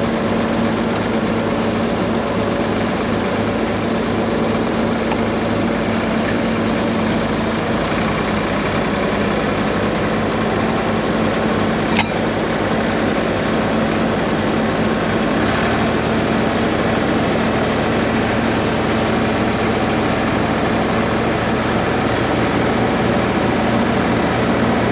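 Farm tractor engine running steadily. A single sharp click comes about twelve seconds in, and the engine's low note shifts a few seconds later.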